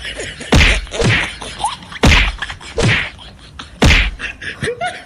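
Punch and slap whacks in a staged slapstick fight: three loud, sharp hits about a second and a half apart, with softer thuds between them.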